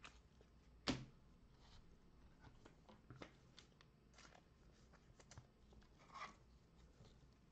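Faint handling of trading cards and their packaging. A sharp click comes about a second in, light ticks are scattered throughout, and a soft rustle comes near the end.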